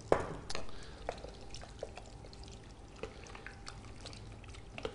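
Wooden spoon stirring diced potatoes and leeks in vegetable stock in a stainless steel pot: liquid sloshing with scattered light taps, after a louder knock at the start.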